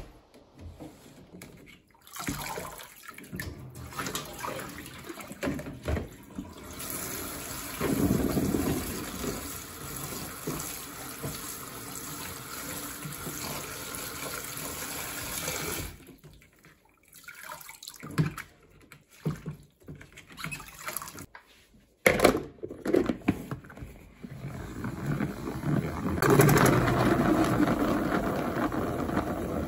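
A kitchen tap runs water onto lettuce in a plastic salad spinner basket while hands swish the leaves. The water then stops, giving way to plastic knocks and clicks of handling. Near the end the salad spinner is spun, a steady whir.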